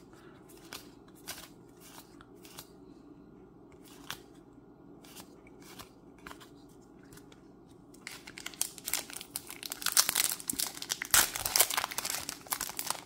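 Faint clicks of trading cards being handled, then, from about eight seconds in, loud crinkling and tearing as the plastic wrapper of a Magic: The Gathering booster pack is torn open.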